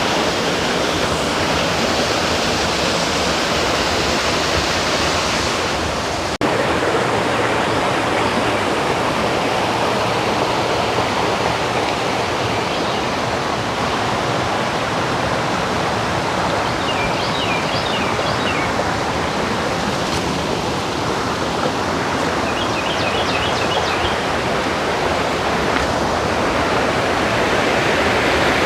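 Waterfall rushing steadily, an unbroken wash of falling water, with a few brief high chirps twice in the latter half.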